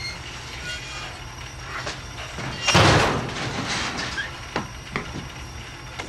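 Scraping and rattling of a fallen sheet-metal air vent and broken ceiling debris being shoved aside, with one loud clatter about three seconds in and a few smaller knocks, over a steady low hum.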